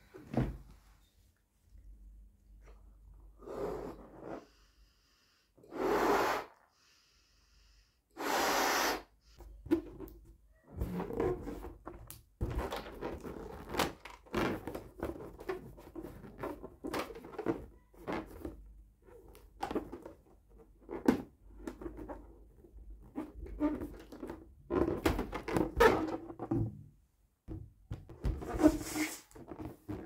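A latex balloon being inflated, with two rushes of air about a second long around six and eight seconds in, followed by rubbery squeaks and crackles as the inflated balloon is handled and its neck knotted.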